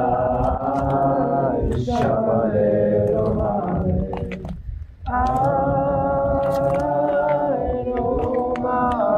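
Voices singing a slow song in long held notes, unaccompanied, with a short break for breath about four and a half seconds in.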